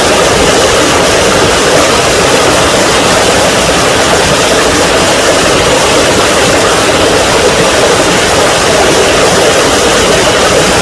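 Small mountain-valley waterfall: water falling and splashing in a loud, steady rush.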